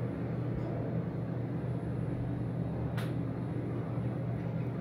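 Hyundai Elevator car, a modernised 1997 LG LVP lift rated at 60 m/min, travelling in its shaft: a steady low hum of ride noise. A single sharp click sounds about three seconds in.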